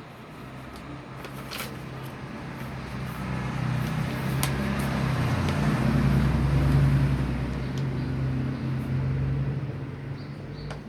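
A motor vehicle's engine passes by, its low hum swelling to a peak about two-thirds of the way through and then fading. A couple of sharp clicks come over it early on.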